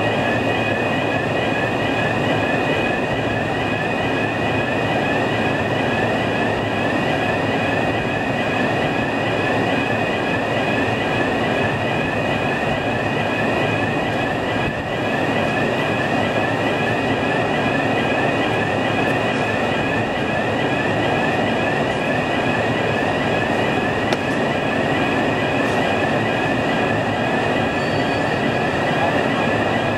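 Automated overhead crane carrying a 10.5-tonne autoclave door, running steadily in a large echoing hall. Over the machinery noise sit several steady high tones with a fast warble.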